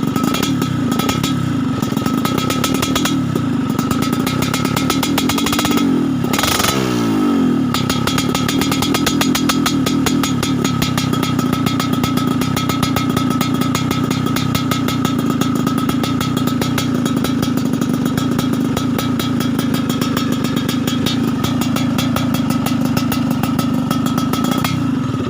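Motorcycle with an aftermarket racing exhaust idling steadily, with one quick throttle blip that rises and falls about six seconds in. The exhaust is set up for a crisp, snoring "ngorok garing" note.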